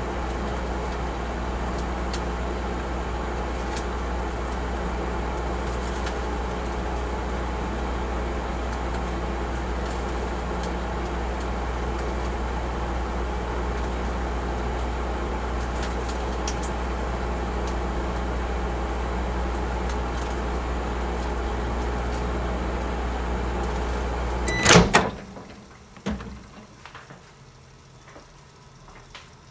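Microwave oven running a timed cycle with a steady low electrical hum. About 25 seconds in, the hum cuts off with a loud, sharp sound as the cycle ends, followed by a softer click about a second and a half later.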